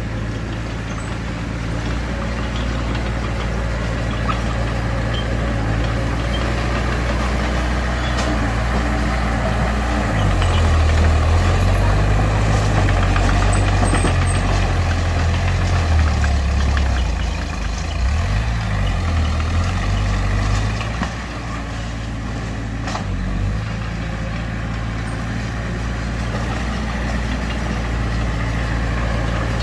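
Heavy diesel engine of earthmoving machinery running continuously. It grows louder for several seconds near the middle, with the engine note rising and falling as it works under load. A few light clicks and knocks sound over it.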